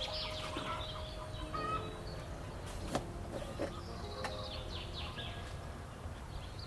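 Small birds chirping repeatedly over soft background music, with two light clicks about three seconds in.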